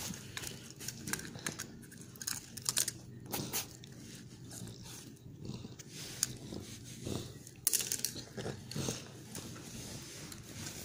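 Bichon frisé chewing on a baby's plastic pacifier: irregular clicks and crunches of teeth on plastic.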